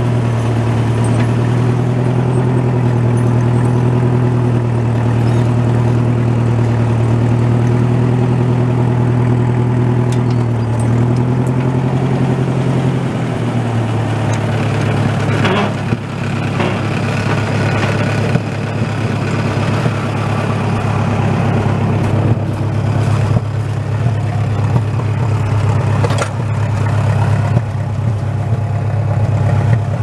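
Tractor engine idling steadily, its pitch dropping slightly about 13 seconds in.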